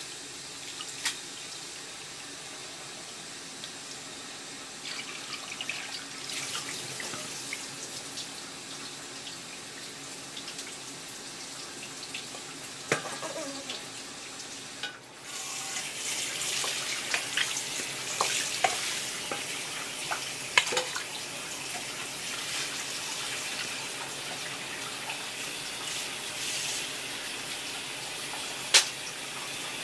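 Hands swishing boiled clam meat about in a stainless steel bowl of water, with a few sharp knocks. About halfway through the water is briefly tipped off, then tap water runs into the bowl, a louder steady hiss with splashing, as the clam meat is rinsed again.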